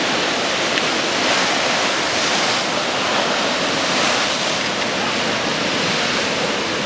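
Sea waves surging and breaking against a seawall, a continuous rushing wash that swells a little about a second in and again about four seconds in.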